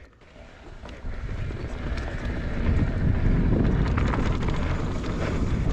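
Wind rushing over the microphone as a mountain bike rolls off and picks up speed on a dirt trail. It starts about a second in and grows louder.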